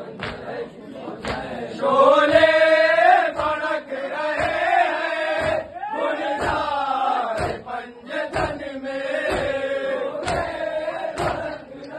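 Men's voices chanting a noha, the Shia lament for Imam Husain, growing loud about two seconds in, with regular thumps of matam, hands beating on chests, keeping the beat.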